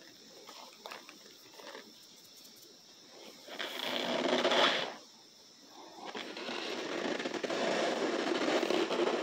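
A hand pressing and squeezing into a tub of loose cornstarch powder, the powder crunching as it packs. There are a few faint crackles at first, then a crunching stretch about three and a half seconds in, and a longer one from about six seconds.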